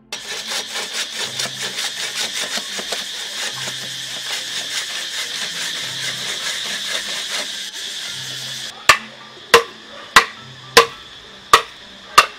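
Bow saw cutting through a bamboo pole with quick rasping strokes for most of the time. Near the end come six sharp knocks, about two-thirds of a second apart, each ringing briefly, from blows splitting the bamboo.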